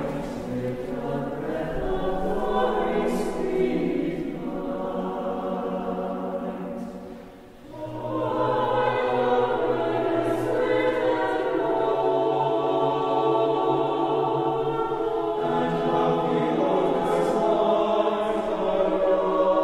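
Mixed-voice chamber choir singing sustained chords. About seven seconds in the sound briefly thins almost to a break, then a fuller chord with a low bass line enters, and a few sibilant 's' sounds are heard in the text.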